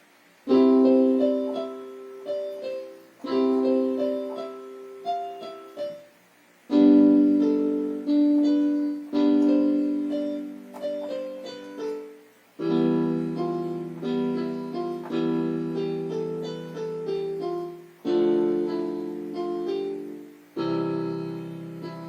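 Piano music in a slow chord progression. Each chord is struck and left to fade, with a few melody notes over it, and a new chord comes every two to three seconds. It starts after a short silence about half a second in.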